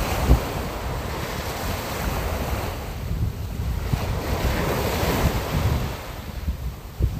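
Sea surf and wind: a continuous rush of waves that swells and eases several times, with gusty wind rumbling on the microphone.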